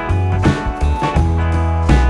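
Background music with guitar over a steady beat and bass.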